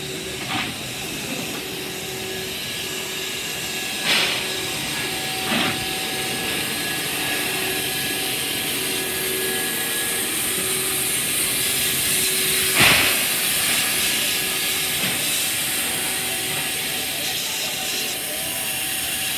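Baldwin-built NSW 59 class steam locomotive 5917 with steam hissing from it steadily. A few short sharp knocks cut through the hiss, the loudest about two thirds of the way through.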